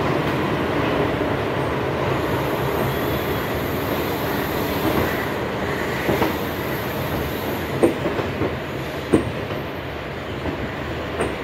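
Electric multiple-unit local train rolling slowly out of the station, heard from an open door: a steady rumble of wheels on rail with a thin high wheel squeal from about two to eight seconds in. Three sharp clacks come as the wheels cross rail joints or points, about six, eight and nine seconds in.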